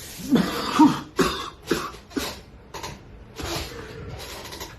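A man in a coughing fit: about six hard coughs in quick succession over the first three seconds, then a long, noisy breath.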